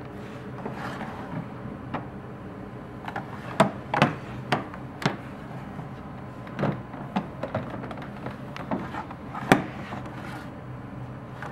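Small wooden drawers of a vintage apothecary cabinet being slid and knocked shut: a series of sharp wooden knocks and short sliding rubs, the loudest knocks clustered about three and a half to four seconds in and once more near the end.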